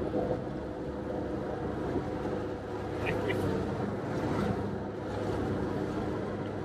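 Sherp amphibious ATV's diesel engine running steadily under way through broken ice and water, heard from inside the cab, with a couple of brief high squeaks about three seconds in.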